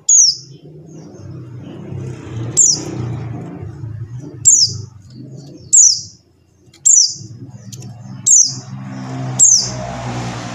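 Pleci buxtoni white-eye giving its call: seven short, high, downward-sweeping notes, one every one to two seconds. Under them runs a low, steady engine-like hum.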